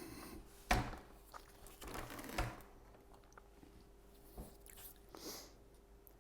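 Faint handling noise: three light knocks with some crinkly rustling in between, from the vacuum and its plastic parts being handled.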